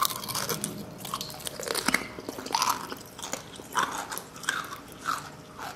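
Raw eggs and eggshells crunched and squished by hand in a wet heap of egg and rice: irregular crackling of breaking shell with wet squelches.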